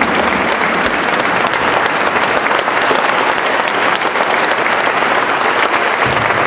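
A large audience clapping steadily, many hands together in sustained applause.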